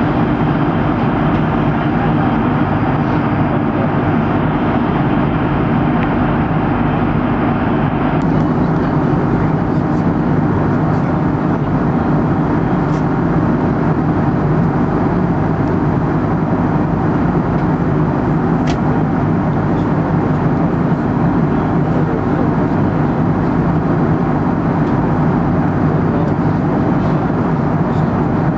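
Steady jet airliner cabin noise heard from a window seat: the even rushing of the engines and airflow past the fuselage, with a constant low hum underneath.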